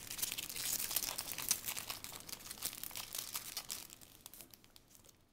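Foil wrapper of a trading card pack crinkling and crackling as it is handled, dying away after about four seconds.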